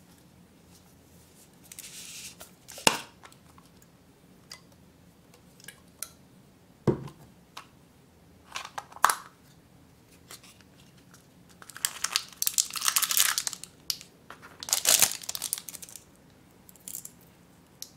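Packaging handled while unboxing a small acrylic keychain charm: scattered clicks and a knock from the can's plastic cap and paper insert, then two bursts of crinkling and tearing as the wrapping is pulled open.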